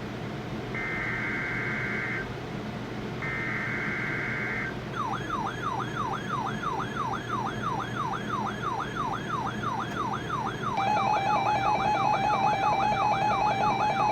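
NOAA Weather Radio test tones: two SAME digital header bursts, each a buzzy data screech lasting about a second and a half. After them, weather alert radio receivers go into alarm, one with a fast repeating siren-like warble, about two and a half sweeps a second. About eleven seconds in, a louder rapid pulsed beeping joins it.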